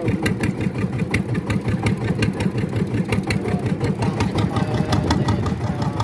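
Fishing boat's engine running steadily, with a rapid, even knock of about six or seven beats a second over a low rumble.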